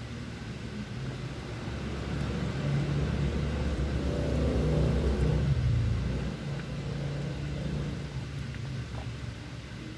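A low engine rumble, building to its loudest about five seconds in and then dropping off fairly suddenly about a second later, over a steady background hum.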